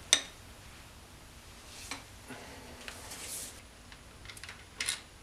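Sharp metallic click about a tenth of a second in, then softer scattered clicks and rubbing, with a short cluster of clicks near the end: a socket wrench working the connecting-rod cap bolts on a BMW M54B30 straight-six's bottom end.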